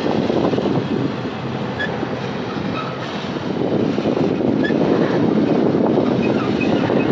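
Double-stack intermodal well cars of a freight train rolling past close by: a steady, loud rumble of steel wheels on rail that eases slightly midway and builds again.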